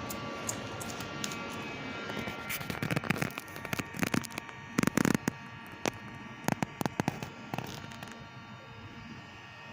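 Irregular knocks, taps and clatters of things being handled, busiest and loudest around the middle, over a faint steady hum.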